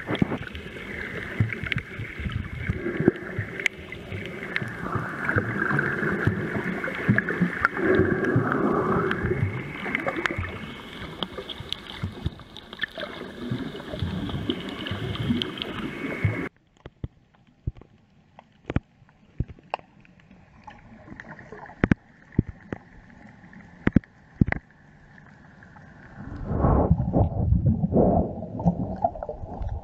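Underwater camera audio: water rushing and gurgling around the camera as the snorkeler swims. About halfway through it drops suddenly to quieter water with scattered sharp clicks, and a short burst of rushing water returns near the end.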